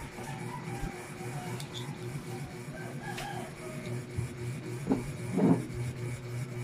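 Quiet eating sounds: chewing and hands handling shellfish and shells, over a steady background hum. A brief pitched sound comes about five seconds in.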